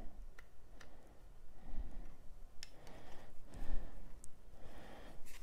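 A few light clicks and soft handling noise from the hard plastic case halves of a TPMS reset tool being pulled apart and handled.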